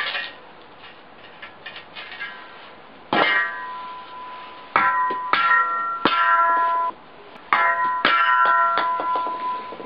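Steel shovel blade chopping down at a golf ball on brick paving: about six sharp metal strikes in the second half, some in quick succession, each leaving the blade ringing with a steady metallic tone that fades over about a second.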